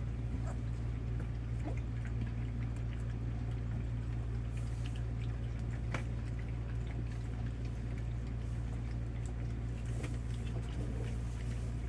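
Young Labrador puppies lapping and slurping a wet first meal from bowls, with scattered small wet clicks and smacks over a steady low hum.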